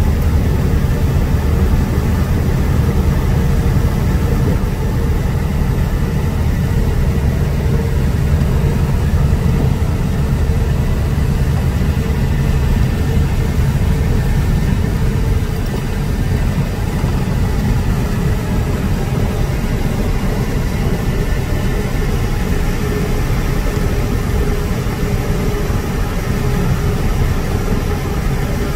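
Steady drone of a truck's engine and tyre and road noise heard inside the cab while cruising at highway speed.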